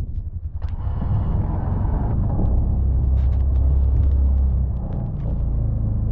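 Engine of a Can-Am Defender side-by-side running under load, a steady low drone that grows louder for a couple of seconds midway, with a hiss that comes in suddenly less than a second in.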